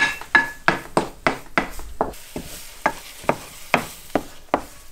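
Spatula scraping and knocking against a frying pan while scrambling egg, in quick regular strokes of about three a second.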